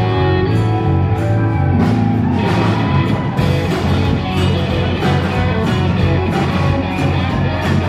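Live rock band playing loud with electric guitars to the fore over bass and drums, at a steady beat; a sustained guitar note bends upward about two seconds in.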